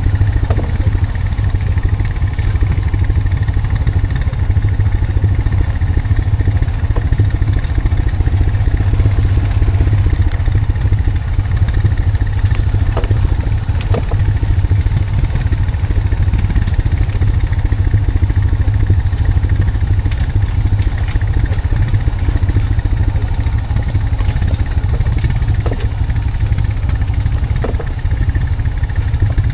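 Honda Foreman 520 ATV engine running steadily at low speed, with occasional knocks and clatter scattered through it.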